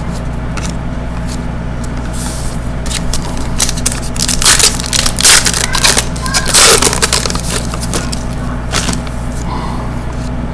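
Crinkling and tearing of a foil trading-card pack wrapper being opened and handled, in loud crackly bursts through the middle, with scattered light clicks over a steady low hum.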